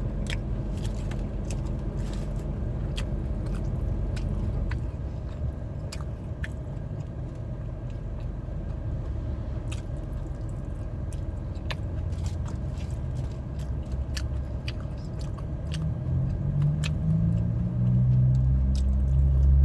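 Chewing crispy fried chicken: short crunchy clicks scattered throughout, over a steady low rumble that swells near the end.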